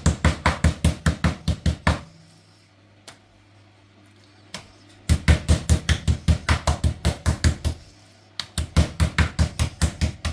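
Metal meat mallet pounding a raw chicken breast flat on a countertop: quick, even thuds about five a second. They come in three runs with a pause of a few seconds between.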